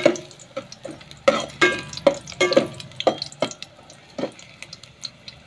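A metal ladle scraping and clanking against a metal pot, stirring ginger as it sautés in hot oil, with a faint sizzle underneath. The strokes come in quick irregular bunches and stop about four seconds in.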